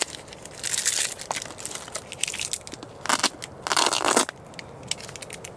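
Rustling and crinkling as small gear is handled and picked out of a fabric organizer, with light clicks of items knocking together; the loudest bouts come about a second in and again around three to four seconds in.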